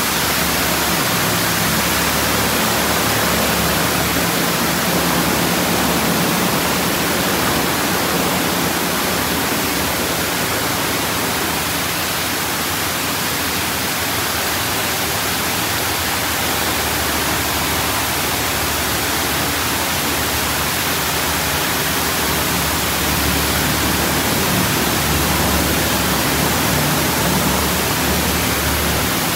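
D&S IQ Express ST automatic car wash machine running: a loud, steady rush of spray or air with a faint low hum underneath.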